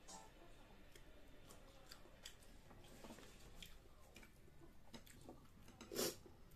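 Faint sounds of eating by hand: scattered soft clicks and small mouth noises as food is picked apart with the fingers and chewed, with one short, louder noise about six seconds in.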